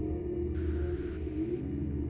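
Dark ambient soundtrack music: a steady low drone under slow, held tones.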